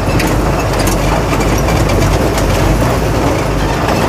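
Truck cab interior while driving over a broken, rough road: the engine running steadily under road noise, with scattered knocks and rattles from the cab over the bumps.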